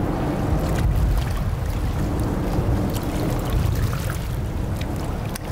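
Steady rumble of a boat's engine running on the water, with wind rumbling on the microphone.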